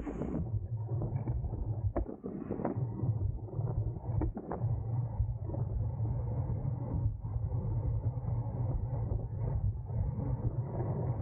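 Steady rumble of wind and road noise from a road bike racing in a pack, with a constant low hum and a few sharp clicks or creaks about two and four and a half seconds in.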